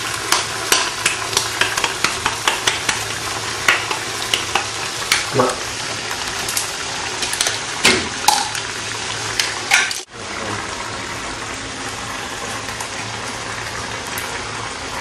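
Beans sizzling and frying in a pan, with many sharp crackles and clicks for the first ten seconds. After a sudden brief dropout about ten seconds in, the sizzle runs on more smoothly.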